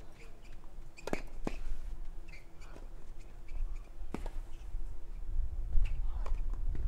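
Tennis ball struck back and forth with rackets during a rally: sharp pops a second or two apart, the clearest about one second in, again half a second later, and just after four seconds, over a faint steady hum.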